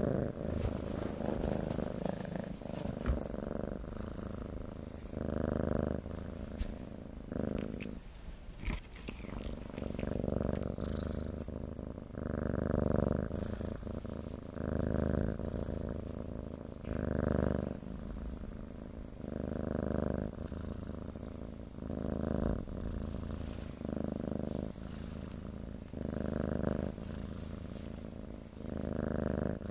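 Domestic cat purring close to the microphone, swelling and fading about every two seconds with its breathing.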